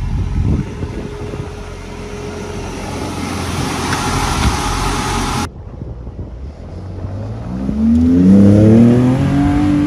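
An engine idles with wind noise on the microphone. After an abrupt cut, a pickup truck's engine revs up hard as it climbs a steep sand dune, its pitch rising in several successive climbs and growing loudest near the end.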